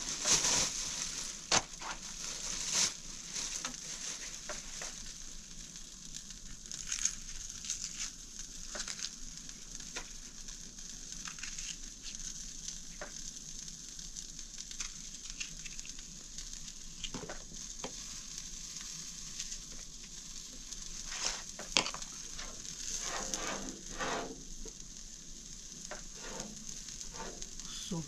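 Food sizzling as it fries in a pan: a steady high hiss, with scattered clicks and knocks from stirring, busiest a little past the middle.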